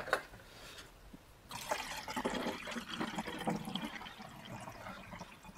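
Water being poured into a plastic GAZelle windshield-washer reservoir, starting about a second and a half in and running on unevenly. The reservoir is being filled to check that the refitted washer pump and its rubber seal no longer leak.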